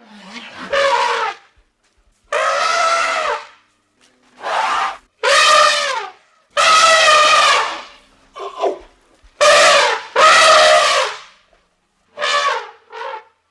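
Elephant trumpeting: a series of about ten loud calls, each lasting up to about a second, separated by short silences.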